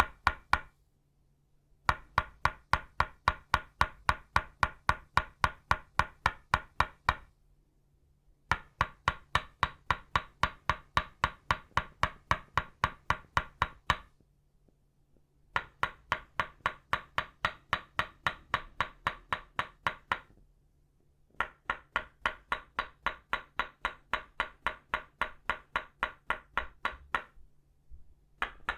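Tok sen wooden mallet rapidly striking a wooden stake, both made of itauba wood, giving a rapid, even knocking with a ringing wooden tone. The knocking comes in runs of about five seconds, broken by short pauses of a second or so, four times.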